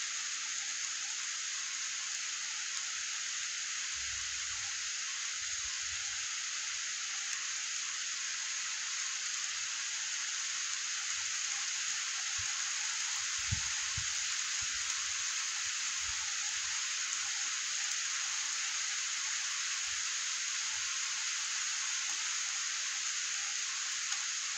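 Steady rain falling, an even hiss, with a few faint low knocks a little past halfway.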